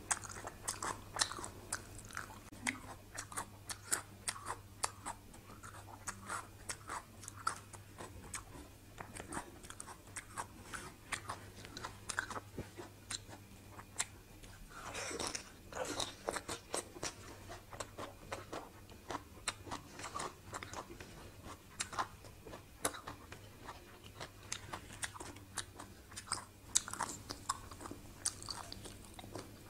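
A person chewing and biting mouthfuls of spicy raw salmon salad with fresh vegetables, with many short crisp crunches throughout and a denser crunching stretch about halfway through.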